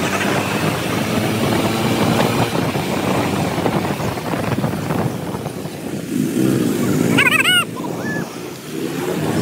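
Motorcycle engine running under load on a steep uphill ghat road, with a steady rushing noise. A brief warbling chirp sounds about seven seconds in.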